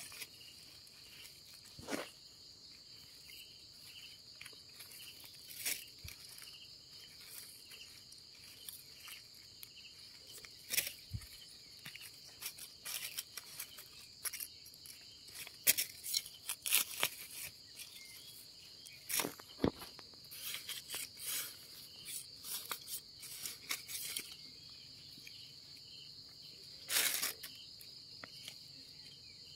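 Steady high chirring of insects, under scattered rustles, cracks and snaps of dry leaves, twigs and soil as termite mushrooms are pulled up by hand. The handling noises bunch up through the middle and once more near the end.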